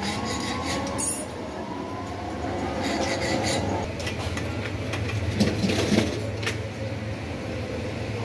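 Scattered metallic clinks and knocks of hand work on a bicycle, over a steady low rumble.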